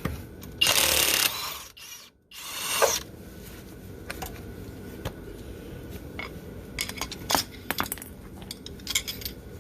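Kobalt XTR high-torque cordless impact wrench running loudly in a short burst about half a second in, then again briefly near three seconds, loosening a car's lug nuts. Scattered metallic clicks and clinks of the nuts and socket follow.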